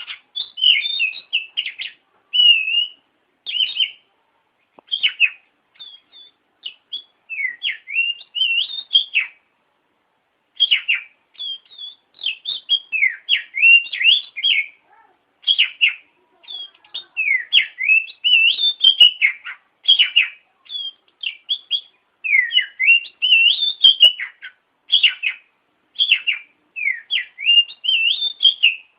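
Oriental magpie-robin (kacer) singing: short phrases of quick, sweeping whistled notes and chirps, broken by brief pauses.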